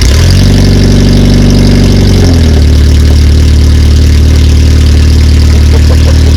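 Acura RSX Type-S 2.0-litre four-cylinder engine starting and running very loud with its exhaust disconnected, sounding like a tractor. It fast-idles at first, then drops to a lower steady idle a little over two seconds in.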